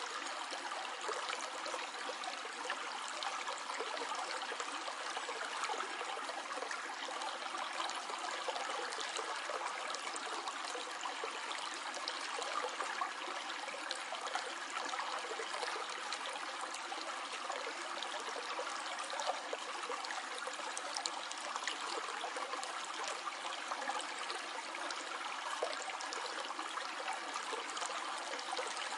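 Stream flowing steadily, water running and trickling over stones without a break.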